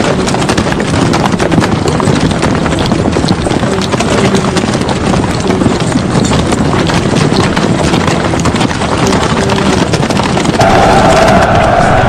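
Massed horses galloping, a dense continuous clatter of many hooves like a cavalry charge. A steady held tone comes in near the end.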